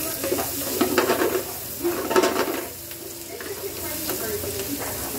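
Pork pieces sizzling in butter and oil in a frying pan while a wooden spatula stirs and scrapes them, with louder bursts of scraping about a second in and again just after two seconds.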